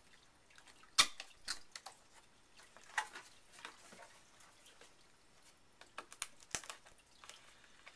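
Cardboard box and packaging being opened and handled: a sharp click about a second in, then scattered lighter clicks and rustles.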